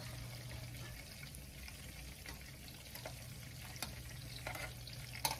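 Turkey meatballs sizzling in hot oil in a skillet, a steady frying crackle. There are a few light clicks and taps in the last couple of seconds as the meatballs are lifted out onto a plate.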